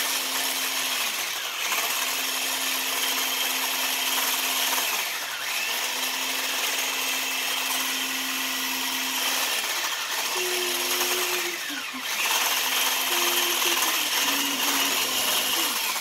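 Electric mixer motor running as its beaters work through thick brownie batter: a steady hum with a few short dips, going up in pitch for a while about ten seconds in.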